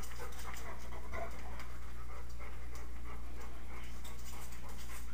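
A dog panting over a steady low hum.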